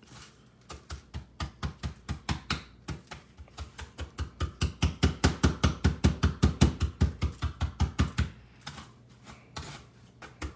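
Rapid pounding on a cutting board to crush granola, about five knocks a second, louder toward the middle. It stops a couple of seconds before the end, then a few more knocks follow.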